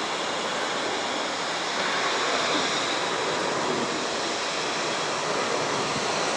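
Steady rushing roar of a Boeing 737-800's CFM56 jet engines as the airliner climbs away overhead, swelling slightly about two seconds in.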